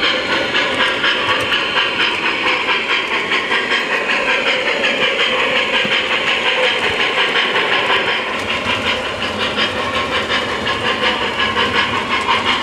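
O-gauge model Norfolk & Western Class J steam locomotive running at speed, its onboard sound system playing steam chuffing with hiss in a quick, even beat, over the running noise of the model on its track.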